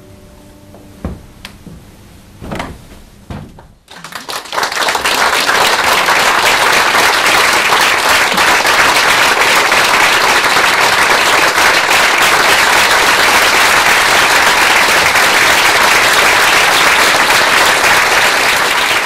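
Theatre audience applauding: the clapping breaks out about four seconds in and runs on steadily and loudly. Before it, a held musical note ends about a second in and there are a few soft knocks.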